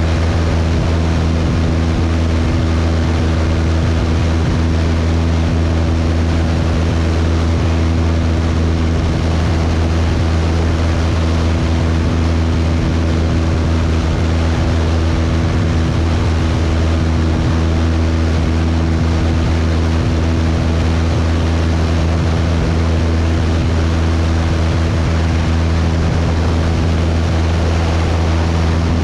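Cessna 172's piston engine and propeller in steady flight: a constant low drone with steady overtones, over a wash of wind noise.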